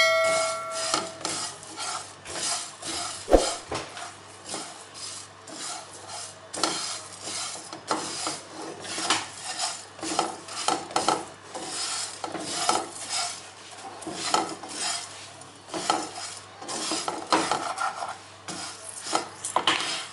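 A plastic spatula stirring and scraping cumin and coriander seeds with dried ginger pieces around a dry nonstick frying pan, in repeated rustling, scraping strokes as they dry-roast. There is one sharper knock about three seconds in.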